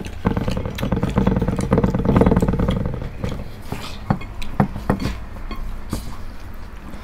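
A rattling, engine-like buzz that swells and fades over the first three seconds, followed by a few sharp clicks and smacks of eating.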